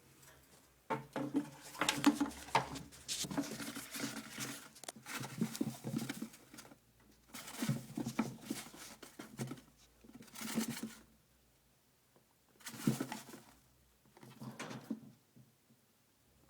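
A chinchilla rolling and digging in dust-bath powder inside an enclosed dust house, making scratching, rustling scrabbles. There is one long bout of several seconds, then four shorter ones with quiet pauses between.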